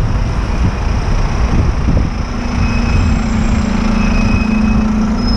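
Wind rushing over the microphone and road traffic noise while cycling along a city street. From about two seconds in, a double-decker bus alongside adds a steady low hum with a faint higher whine.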